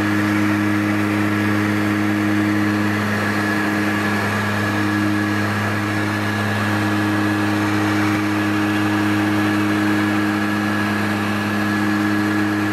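Aircraft engines and propellers droning steadily, heard inside the cockpit: a low hum made of several even tones, one of them fading in and out every second or two, with a steady high whine over it.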